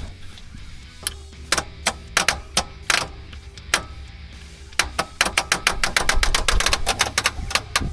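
A series of sharp clicks or taps, scattered at first and then a quick rapid run of them about five seconds in, over a steady low hum and background music.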